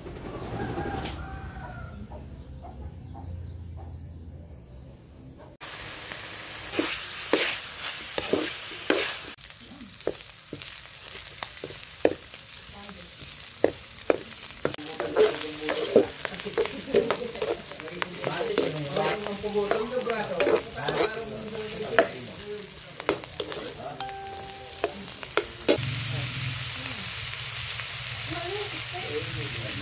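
Garlic, onion and tomato sizzling in hot oil in a pan, starting suddenly about six seconds in, while a metal spoon stirs and clicks and scrapes against the pan. Near the end sliced green beans and pork fry with a steadier sizzle.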